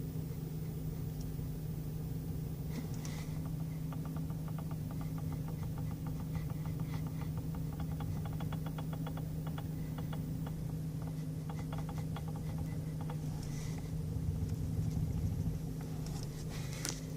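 A rapid train of light clicks from the steering wheel of a 2012 Chevrolet Cruze Eco as it is turned, starting about four seconds in and stopping after about eight seconds, over the steady hum of the idling engine. The clicking is a fault that appears only when the wheel is turned to the left.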